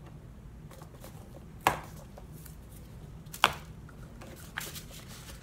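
Two sharp taps about two seconds apart, then a couple of fainter ticks, as handmade paper envelopes are handled and stacked together.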